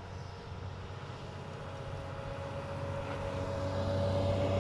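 Engine of a wheeled snow-clearing machine running steadily while it pushes snow, growing louder toward the end.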